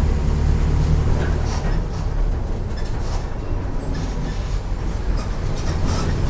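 Mercedes-Benz OF 1418 bus diesel engine running while under way, a heavy low drone that eases off about two seconds in. Scattered light rattles come through over it.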